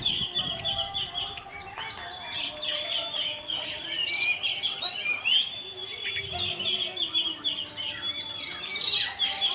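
Orange-headed thrush (anis merah) in continuous 'teler' song: a rapid, unbroken run of varied whistled phrases, chirps and sweeping notes, with a steady high note running underneath.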